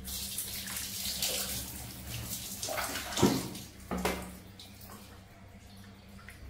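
Water poured from a plastic scoop over a baby monkey during a bath, splashing for about four seconds with a short knock a little after three seconds, then dying down to a quieter trickle.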